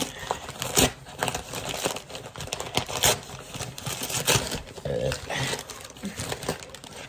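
Mail packaging being torn open and crinkled by hand: irregular rustling and crackling with a few sharper, louder rips.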